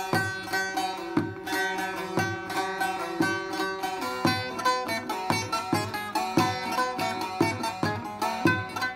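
Turkish bağlama (long-necked saz) played solo: a quick, rhythmic run of plucked notes over strings left ringing underneath, in traditional Turkish folk style.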